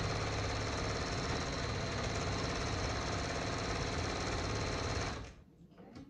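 Pfaff Creative 4.5 electric sewing machine stitching a seam at steady speed, a rapid needle clatter over a steady motor whine, that stops suddenly about five seconds in.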